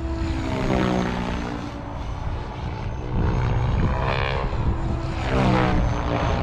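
SAB Goblin RAW 580 electric RC helicopter in flight, its rotor blades and motor making a pitched whine that swings up and down in pitch several times as it manoeuvres.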